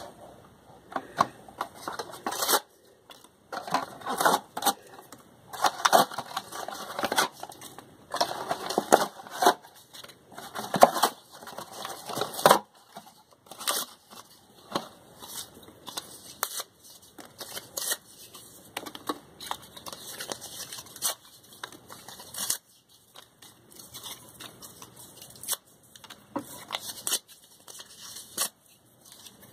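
A thin cardboard hair-dye box being ripped up by hand, in irregular bursts of tearing and crackling with short pauses between them.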